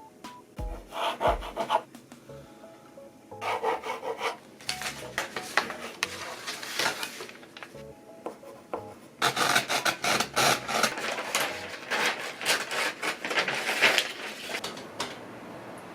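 Repeated rubbing and scraping strokes in several bursts, the longest in the second half, with faint background music in the pauses.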